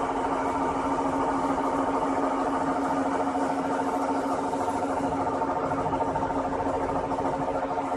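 Lathe running under power, its motor and rotating chuck giving a steady hum with a fast, even flutter.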